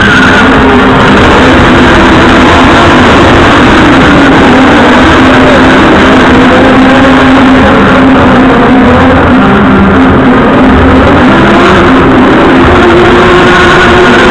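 Stunt cars racing on a show set, their engines loudly revving up and down.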